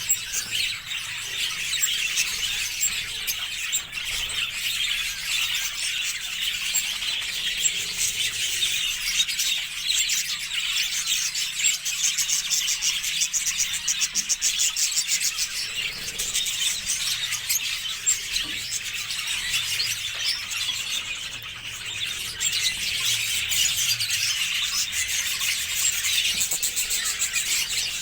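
Budgerigars calling continuously, many fast, high-pitched chirps overlapping.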